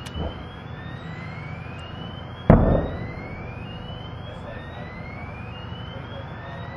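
A single loud blast about two and a half seconds in, from munitions cooking off in a burning ammunition dump, over a steady background rumble. A faint tone rises in pitch again and again, about once a second.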